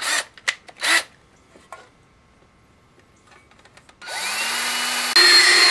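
Cordless drill boring the second bolt hole through a top box mounting bracket. After two short bursts in the first second, the motor spins up about four seconds in with a rising whine, then gets louder about a second later as it keeps drilling.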